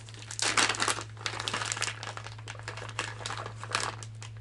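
Thin plastic lure bag crinkling and crackling in irregular bursts as it is opened and handled and the soft-plastic baits are pulled out, with a steady low hum underneath.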